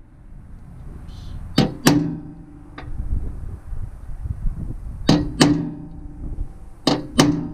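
Hammer tapping a centre punch into the sheet-metal body of a Ford Ranger to mark spot welds for drilling, with three pairs of sharp metal strikes and one lighter tap. The panel rings briefly after each strike.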